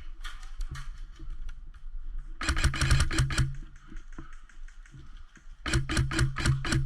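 Airsoft electric gun firing two full-auto bursts of about a second each, a rapid string of sharp cracks over the gearbox motor's hum. The first burst comes about two and a half seconds in, the second near the end, with fainter scattered clicks between them.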